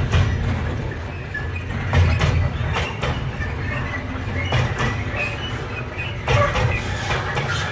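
Intermodal freight train's container wagons rolling slowly past: a steady low rumble, broken by irregular clanks and knocks every second or two.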